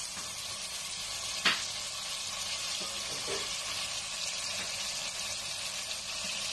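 Potato pieces and freshly added chopped tomatoes sizzling in hot oil in a pot, a steady hiss, with one sharp knock about one and a half seconds in.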